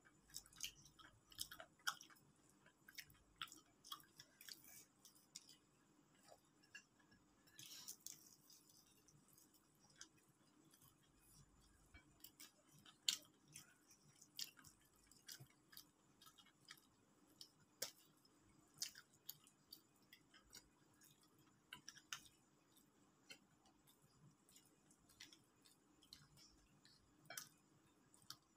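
Faint eating sounds: scattered, irregular small clicks and crunches as fried chicken is pulled apart by hand and chewed.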